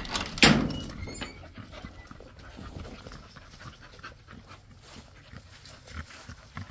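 American pocket bully dog panting, with one loud thump about half a second in.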